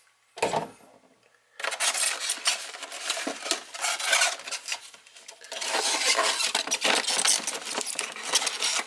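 Rummaging through the camera box's accessory packaging: plastic bags and wrapping crinkling and rustling, with small items clicking and rattling. It starts about a second and a half in, eases for a moment in the middle, then picks up again.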